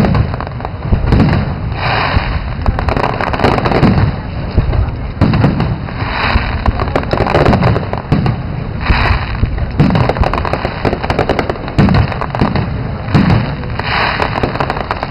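Aerial firework shells bursting in a loud, continuous barrage: about one or two deep booms a second, with crackling between them.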